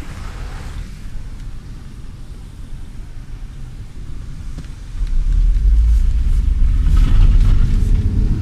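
Low rumble of wind and road noise inside a moving car with the window open, growing clearly louder about five seconds in.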